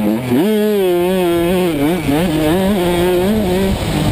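The rider's own 85cc two-stroke motocross bike engine at race pace, heard close from the rider's helmet: the revs climb sharply about half a second in, then hold high with quick rises and dips as the throttle is worked, easing off near the end. Wind rush runs underneath.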